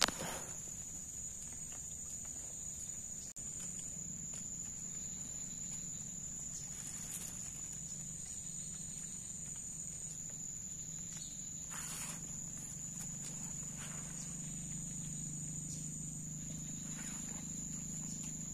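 Forest insects holding one steady high-pitched trill, with a second high tone joining in for a stretch in the middle. A few soft brief rustles come from movement in the undergrowth.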